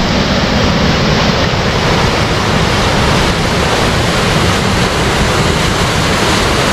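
Water gushing out from beneath a water-powered sawmill and churning into a rocky stream: a loud, steady rush.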